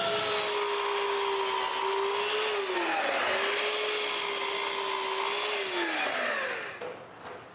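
Power saw running and cutting 1/2-inch plywood into strips. Its motor pitch sags briefly about two and a half seconds in and recovers, then winds down near the end as the saw is switched off.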